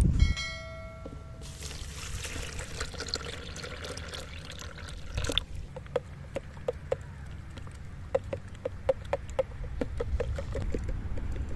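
Liquid being poured for about four seconds, after a brief ringing tone at the start, followed by a run of light clicks or drips.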